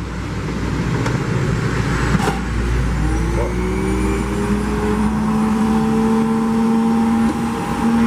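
Mondial juicer's electric motor running. Its whine rises in pitch about three seconds in, then holds steady. The machine is running again after a fault that the repairer puts down to its switch.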